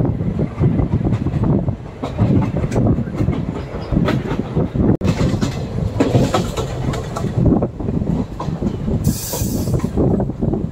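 Indian express passenger train running, heard from the coach: a steady rumble with wheels clicking over the rails. A short burst of hiss comes near the end.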